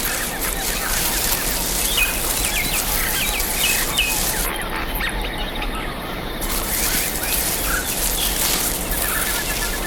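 Several small birds chirping and trilling in short, repeated calls over a steady hiss of jungle ambience.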